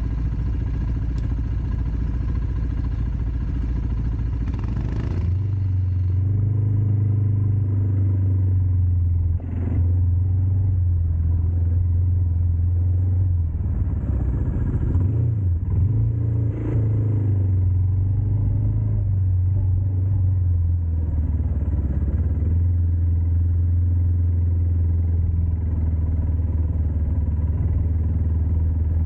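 ATV engine running steadily with a low hum, with a couple of brief knocks partway through.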